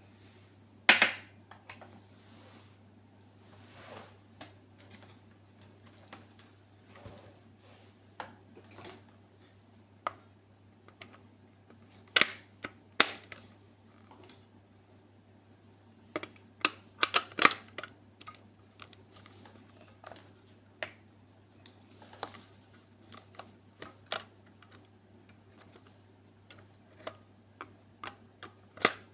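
Kitchen utensils and dishes clinking and knocking, irregular sharp taps and clicks while eggs and sugar are being added, over a faint steady low hum.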